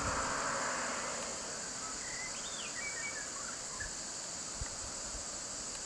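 Steady high-pitched drone of insects in roadside forest, with a short bird call of a few chirps about two seconds in.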